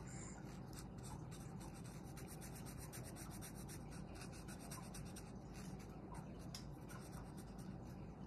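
A thick Sharpie permanent marker scribbling on paper in many quick, short strokes as it fills in a small area with black ink; faint.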